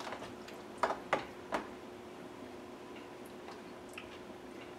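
Three light clicks about a second in from a spoon and bowl being handled at the counter, then only a faint steady hum.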